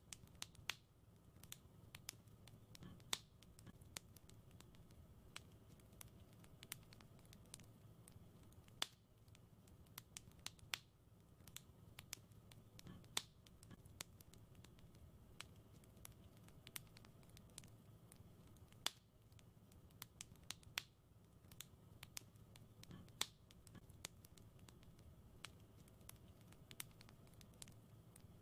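Wood fire crackling in a fireplace: sharp, irregular pops and snaps, several a second with some much louder than others, over a faint low background.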